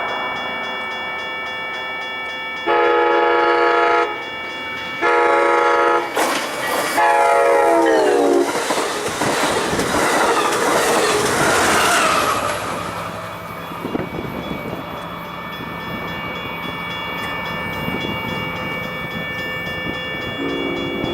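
Diesel locomotive horn sounding for a grade crossing: two long blasts, then a third that drops in pitch as the locomotive passes. The train then rushes by with wheel clatter on the rails and fades away, and a faint horn sounds again near the end.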